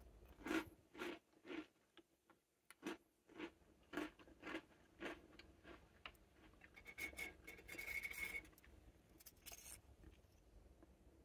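Hard animal-shaped butter cookies handled on a ceramic plate: about nine light clicks and taps in the first five seconds, then a scrape with a thin squeaking tone around eight seconds in, and one more short rustle near the end.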